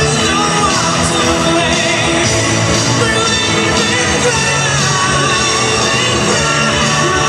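Loud pop music with singing, with a few shouts over it.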